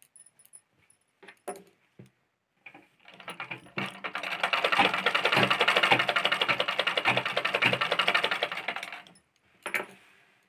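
Black domestic straight-stitch sewing machine stitching a saree fall: a rapid, even rattling clatter of the needle mechanism starts about three seconds in, runs for about six seconds and stops suddenly. Faint clicks of the cloth being handled come before and after.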